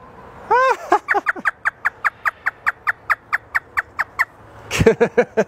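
African grey parrot doing a hysterical laugh: one rising-and-falling whoop, then a fast, even run of short "ha" notes, about six a second, lasting about three seconds.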